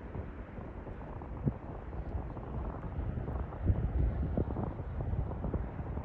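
Wind buffeting the microphone: a gusty, uneven low rumble that swells a little past the middle.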